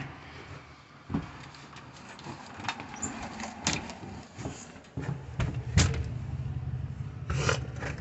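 Scattered knocks and clicks of handling, with a low steady hum coming in about five seconds in.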